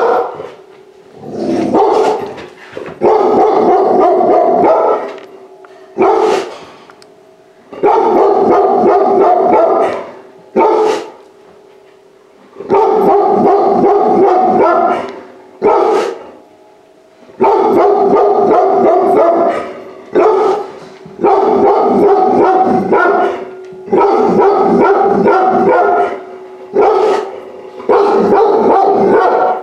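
Large-breed puppy barking in repeated loud outbursts of two to three seconds, with short gaps between them and a faint steady hum underneath.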